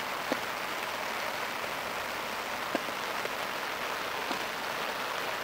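Steady rain coming down fairly heavily, with a few louder single drop hits standing out.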